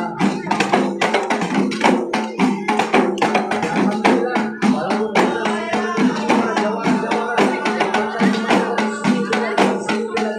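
Terbangan frame drums beaten by hand in a fast, steady interlocking rhythm, with a group of voices chanting dikir over the drumming.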